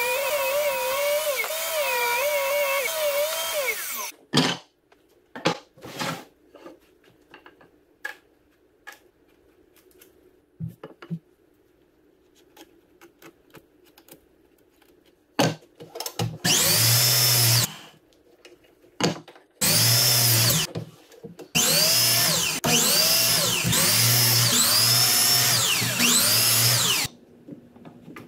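Table saw ripping a pine board, its motor running under load for about four seconds and then cutting off. After a pause with a few small knocks of wood being handled, a power drill runs in three bursts, the longest last, its pitch rising and falling again and again.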